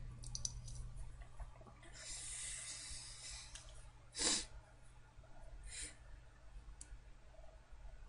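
A person breathing close to the microphone: a long breath about two seconds in, then a short sharp sniff about four seconds in and a softer one near six seconds. A steady low electrical hum and a few faint clicks run beneath.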